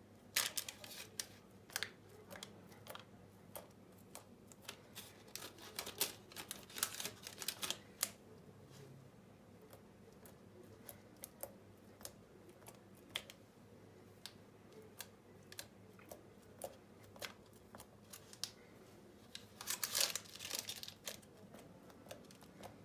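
Fingertips pressing grooves into soft pide dough on a parchment-lined baking tray: a quiet run of irregular small clicks and taps, thickest in the first eight seconds and again near the end.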